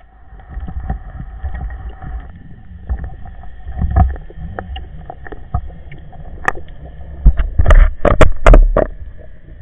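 Underwater camera sound of a freediver swimming with a speargun: a low rush of moving water with scattered clicks, then several loud thumps near the end.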